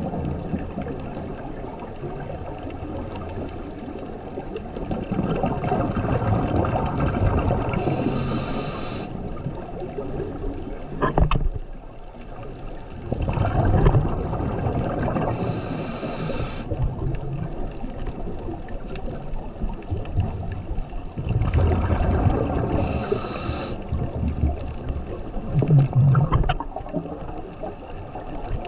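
Scuba diver's regulator breathing underwater: three short hissing inhales, about seven to eight seconds apart, alternating with long, low, bubbly rumbles of exhaled air.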